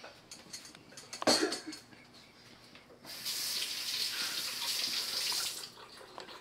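A water tap running for about two and a half seconds, turned on about three seconds in and shut off near the end. Before it, a single sharp knock about a second in, with a few light clatters.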